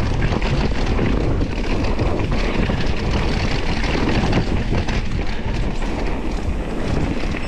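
Mountain bike riding fast down a dirt trail: tyres rumbling over the ground and the bike rattling and clattering over roots and bumps, a steady loud run with many small knocks.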